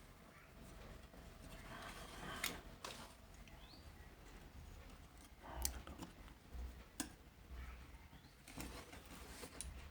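Faint handling sounds of desoldering a bridge diode from a charger circuit board: a few sharp clicks and taps of tools against the board, with soft low bumps between them.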